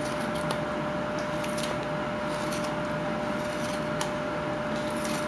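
Whittling knife slicing shavings off a wooden toy-gun blank: several short, faint scraping strokes, one every second or so, over a steady room hum with a thin high tone.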